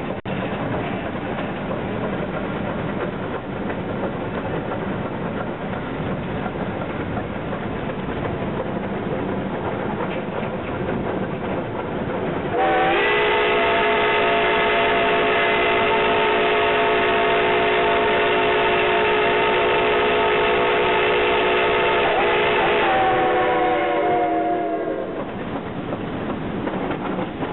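Western Maryland Shay No. 6, a geared steam locomotive, running along the track with its chuffing and wheel-on-rail noise. About a third of the way in, its steam whistle sounds one long blast of about twelve seconds, several tones sounding together as a chord. The pitch sags as it tapers off, and then the running noise carries on.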